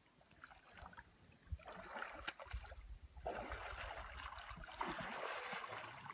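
Water sloshing and splashing around a bull moose's legs as it wades through a shallow pond. The splashing starts about two seconds in, breaks off briefly near the middle, then goes on unevenly.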